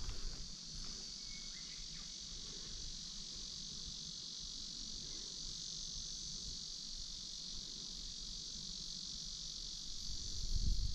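A steady, high-pitched chorus of insects from the lakeside woods, unbroken throughout. A low rumbling noise rises near the end.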